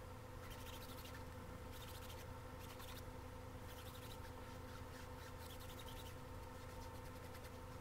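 Faint, scratchy rubbing of a foam brush spreading sealant over the bumpy resin drills of a diamond painting, in strokes that come and go, over a steady low electrical hum.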